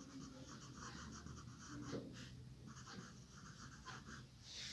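Pen scratching faintly on paper in a run of short, irregular strokes as a word is handwritten.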